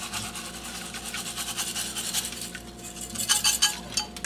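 Dry brown rice grains pouring from a stainless steel measuring cup onto food in a slow cooker crock, a fine steady patter. About three seconds in, a few sharper metallic clicks as the cup is shaken and tapped out.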